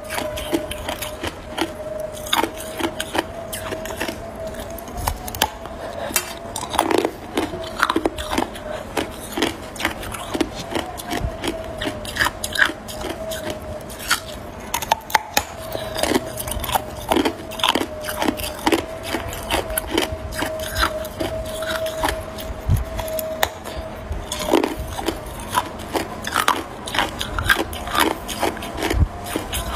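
Teeth biting and chewing a disc of frozen crushed ice: irregular crunches and cracks, several a second at times, over a steady faint hum.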